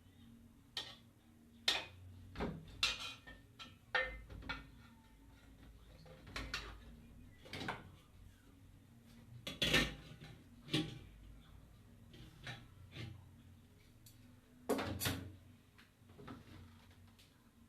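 Irregular clinks and knocks of dishes and kitchen utensils being handled, about a dozen separate sounds, the loudest about ten seconds in and again near fifteen seconds.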